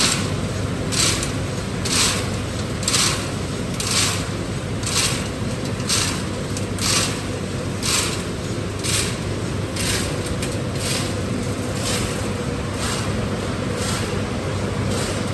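Copper-aluminum radiator crushing and sorting line running with a steady low rumble. Short hissing bursts come about once a second and grow fainter near the end.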